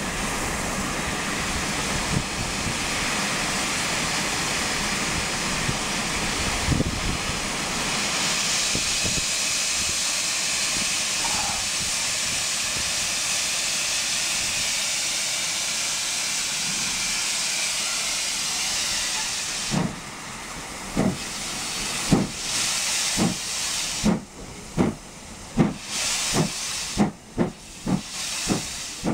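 Steam locomotive hissing loudly with escaping steam. About twenty seconds in, its exhaust beats begin, slow at first and quickening to about two a second as the train pulls away.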